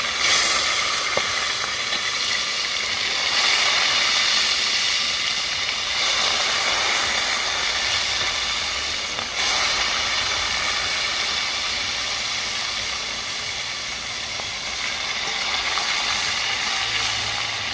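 Chicken pieces browning in hot oil in a large pot, giving a steady sizzle, with a couple of brief knocks as pieces are lifted out with a fork.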